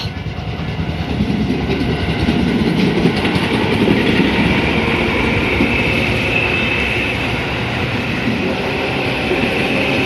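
Tobu 10030-series electric train pulling out of the station and running across the level crossing close by, wheels rumbling and clattering over the rails; the noise builds over the first few seconds and holds, with a high steady whine joining about halfway through.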